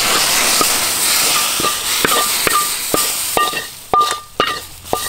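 A steel wok of hot toasted bits is scraped out into a pot of boiling soup with a loud hiss. Then a metal spatula taps the rim of the steel pan about seven times, each tap ringing briefly.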